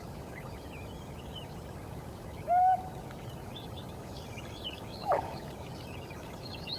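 Two short bird calls about two and a half seconds apart, the first a held, slightly rising note and the second a quick rising and falling yelp. Faint high chirping from small birds runs underneath, over a steady hiss.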